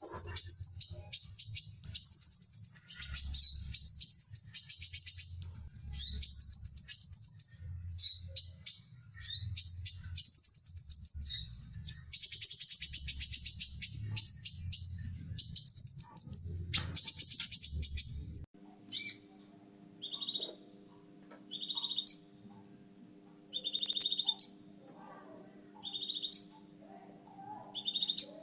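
Scarlet minivet singing: rapid, high chattering trills in long run-on phrases. About two-thirds of the way in the recording changes to separate, repeated calls about every two seconds, over a faint steady hum.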